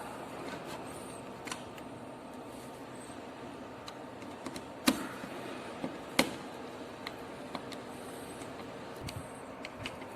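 Small clicks and taps of a power socket's wire terminal being worked, as a wire is fastened under its copper plate and screw, with two sharper clicks about five and six seconds in over a steady background hiss.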